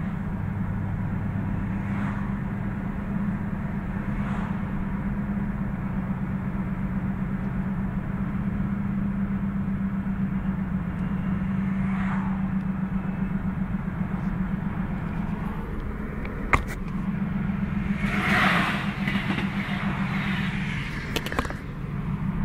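A BMW E46 M3 driving with a steady low drone over road noise. This is the unexplained noise the owner is chasing: the front wheel bearings are new and the rear is judged OK, and some suspect the tyres. A sharp click comes about three-quarters of the way in, followed shortly by a brief louder rush of noise.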